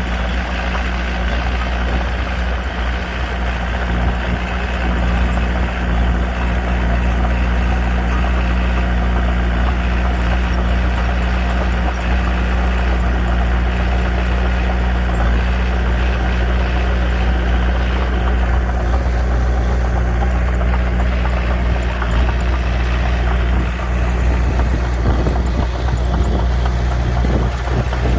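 Diesel engine of a Komatsu D21P small bulldozer running steadily at an even speed while the machine works, with the higher-pitched part of the noise easing off about two-thirds of the way through.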